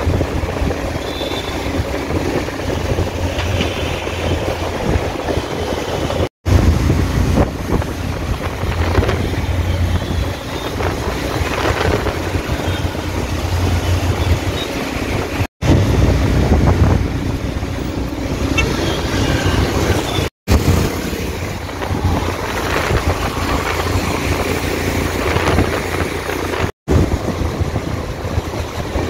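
Steady rush of wind on the microphone and road noise from a two-wheeler riding in traffic on wet roads. The sound cuts out completely for an instant four times.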